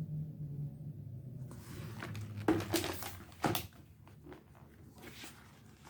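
Handling noise from a picture book being turned to its next page: a few soft knocks and rustles, clustered about two and a half to three and a half seconds in, over a low hum.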